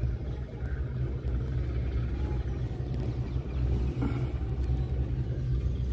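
A low, steady rumble.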